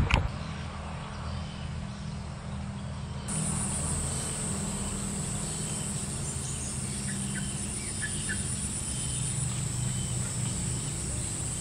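Insects droning steadily on one high, even pitch, starting abruptly about three seconds in, over a low steady background hum, with a few short faint chirps near the middle.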